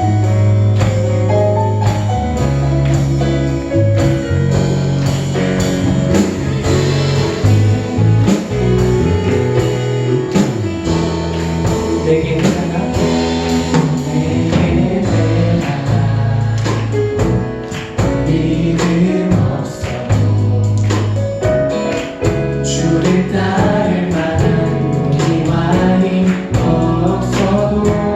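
Church worship band playing a gospel praise song with a steady drum beat and strong bass.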